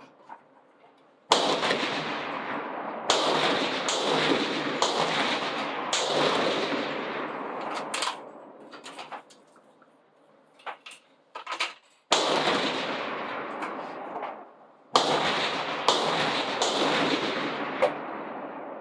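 Benchrest rifles firing along the line, about ten sharp shots in two clusters, each cracking loud and then ringing off in a long echo under the covered firing shed. In the lull between the clusters, a few faint sharp clicks.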